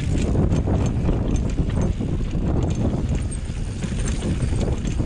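Banshee Spitfire full-suspension mountain bike riding over rocky singletrack: a steady rumble of tyres on rock with a rapid, irregular clatter of knocks and rattles from the bike.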